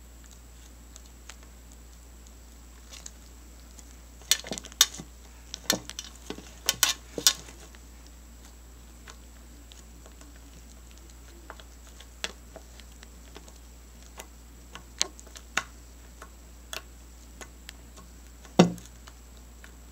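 Homemade glue-and-laundry-detergent slime being pressed and poked with the fingers, giving sharp little clicks and pops: a quick run of them about four to seven seconds in, single ones scattered after, and the loudest pop near the end.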